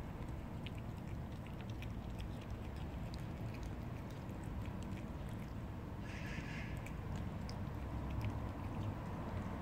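A cat eating wet food and dry kibble from a bowl: many small chewing clicks and crunches over a steady low background rumble.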